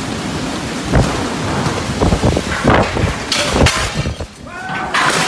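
Heavy rain pouring down in a windstorm, with strong gusts that rumble and buffet in loud irregular surges from about a second in.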